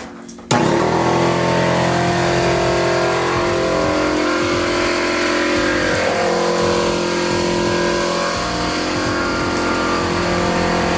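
Air compressor switched on and running loud and steady, its motor and pump filling the tank; the sound starts suddenly about half a second in.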